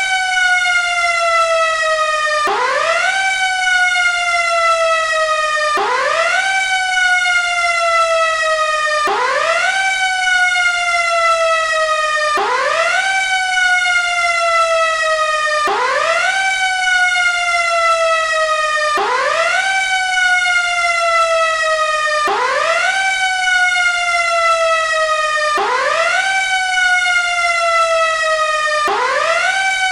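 Fire engine's Q-siren (mechanical siren) wailing in a repeating cycle: a quick rise in pitch followed by a slow falling wind-down, about every three seconds, with no pause between cycles.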